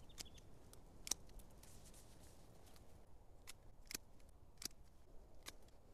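Hand pruning shears snipping through park rose shoots: about six faint, sharp snips at uneven intervals.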